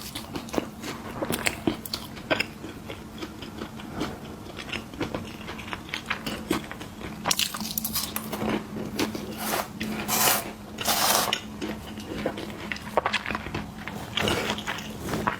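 A person chewing crunchy snack food close to the microphone: irregular crisp crunches and bites, louder and denser from about seven to eleven seconds in.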